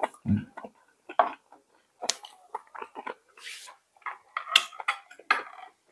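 Kitchen clatter while cooking: utensils and dishes knocking and clinking in short, scattered strokes.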